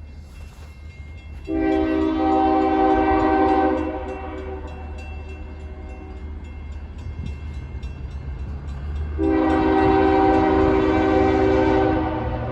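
Norfolk Southern freight locomotive's air horn sounding two long blasts of a multi-note chord, the second starting about nine seconds in, over the low rumble of the passing train.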